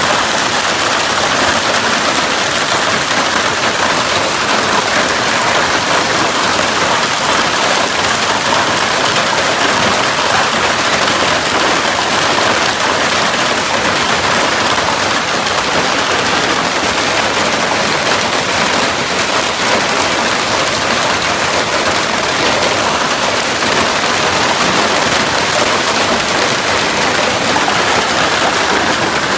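Heavy hailstorm: countless hailstones pelting a pickup truck, plastic wheelie bins and the ground in a loud, steady, dense clatter.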